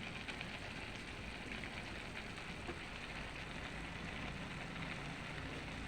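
Pan of mixed vegetables with a little added water sizzling and steaming at the boil, a steady hiss.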